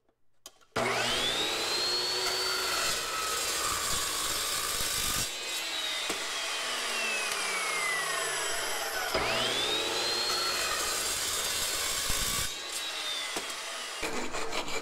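Electric miter saw cutting aluminum sheet. The motor whines up to speed about a second in, runs through the cut, then winds down with a long falling whine. It starts and winds down a second time near the end.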